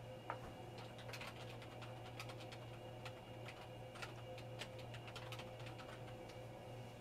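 Typing on a computer keyboard: faint, irregular keystroke clicks over a steady low hum.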